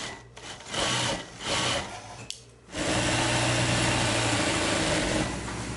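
Industrial sewing machine stitching fabric: two short bursts of running, a click and a brief pause, then a longer steady run of about two and a half seconds.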